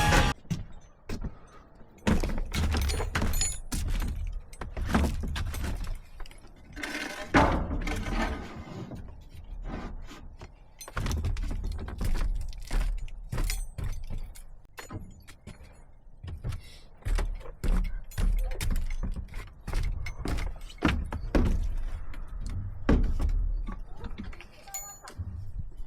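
Hand work on building materials: irregular knocks, taps and light metallic clinks and rattles, over a low rumble.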